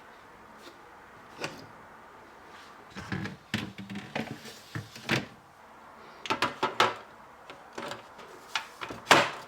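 Plastic shelves and trays of a mini fridge being put back in place: scattered knocks, clicks and scrapes, starting about three seconds in, with the loudest sharp knock near the end.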